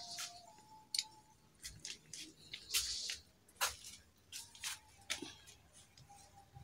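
Faint, irregular clicks and rustles, about a dozen short sounds, from a phone being handled while it is moved back from the bed.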